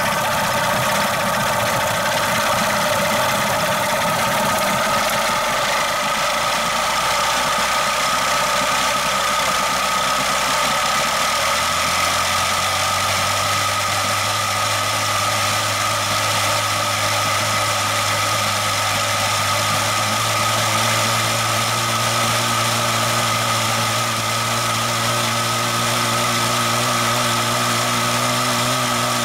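Yamaha/Mariner 6E9 40 HP two-stroke outboard running steadily with its propeller throwing water. About twelve seconds in the engine note steadies. The run is part of an ignition timing check, and the owner judges the engine pretty much in tune but still not reaching wide open throttle.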